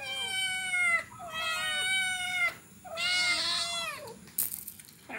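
Cats meowing: three drawn-out meows in a row, each about a second long and sliding slightly down in pitch. A brief sharp click comes about four and a half seconds in.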